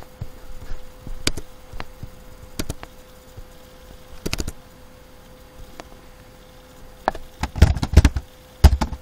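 Scattered single clicks of a computer mouse, then near the end a quick run of louder keyboard key taps, over a faint steady hum.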